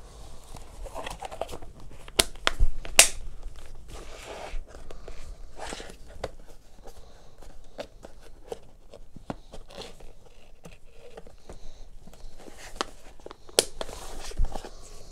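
Handling noise as a plastic hard-shell flashlight case is packed and closed: light rustling and scraping with a few sharp clicks, the loudest about two and three seconds in and a couple more near the end.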